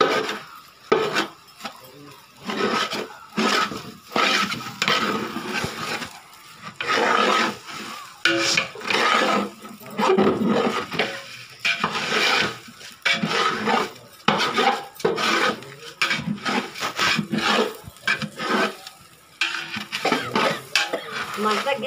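A long metal spoon stirring and scraping chicken biryani rice in a large metal pot, a run of irregular rasping strokes against the pot.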